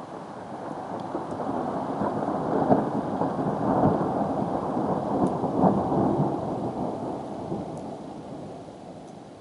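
Rolling thunder rumbling during a thunderstorm: a long, deep rumble that swells over a few seconds with several louder surges, then dies away near the end.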